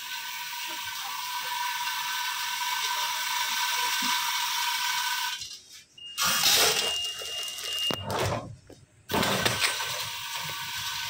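Automatic screw and fastener pouch packing machine running: a steady motor hum with light mechanical clicking. About halfway through the sound turns louder and rougher for about three seconds, with a steady high whine, then the steady hum returns.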